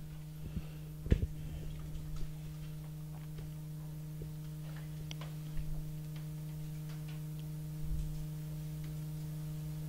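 Steady electrical hum with a few faint, irregular clicks scattered through it; room tone during a writing pause in a lecture.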